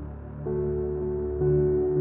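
Ambient background music with slow, sustained notes; new notes come in about half a second in and again near the end.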